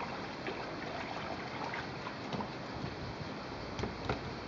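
Pool water sloshing and lapping, with light splashes from a child moving in the water at the pool's edge, and a couple of sharper splashes near the end.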